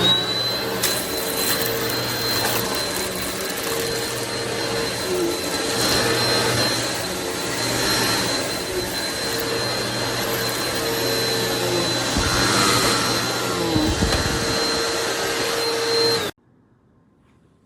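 Eureka PowerSpeed bagless upright vacuum cleaner running, a steady rushing motor noise with a high whine on top, cutting off suddenly near the end.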